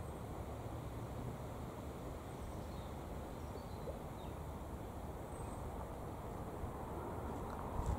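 Outdoor ambience: a steady low rushing noise that swells near the end, with a few faint, short bird chirps over it.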